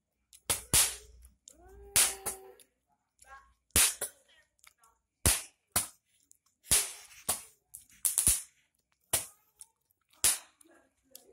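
Firecrackers going off one after another: about a dozen sharp bangs at uneven intervals.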